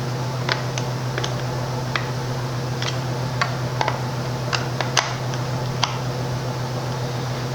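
Light, irregular clicks and taps of small chainsaw parts being handled and fitted, about a dozen in all, over a steady low hum.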